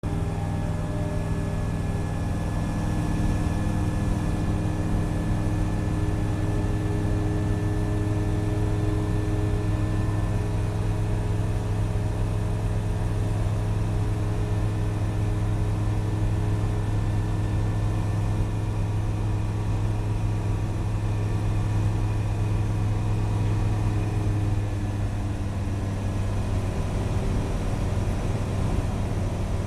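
Light aircraft's engine and propeller droning steadily, heard from inside the cockpit in flight. The tone of the drone shifts slightly about 25 seconds in.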